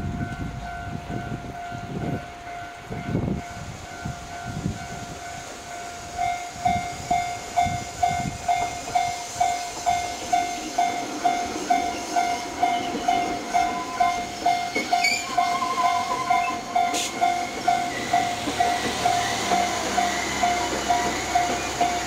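Japanese level crossing warning bells. A steadier, quieter bell tone sounds from the start. About six seconds in, a loud electronic bell starts its even clang at roughly one and a half strikes a second as the crossing activates for an approaching train. Low thumps sound during the first few seconds.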